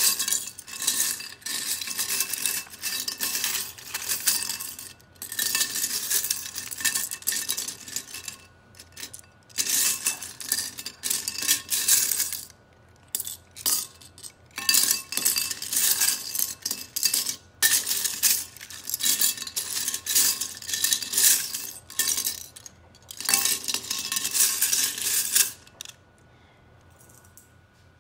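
Loose plastic Lego bricks clattering against each other and a ceramic bowl as a hand rummages through them, in repeated bursts of a few seconds with short pauses, stopping a couple of seconds before the end.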